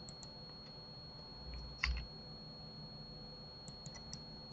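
A few scattered computer keyboard and mouse clicks, the loudest about two seconds in and a quick cluster of light clicks near the end. Under them runs a faint steady hiss with a thin high tone.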